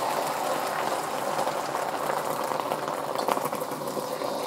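Beaten eggs sizzling steadily in hot oil in a wok, a dense hiss with fine crackling as they set.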